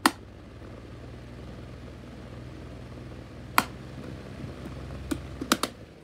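Schallen 12-inch desk fan motor running with a low, steady hum, its bearings badly worn. There is a sharp click at the start, another about three and a half seconds in, and several more near the end, and the hum stops abruptly just before the end.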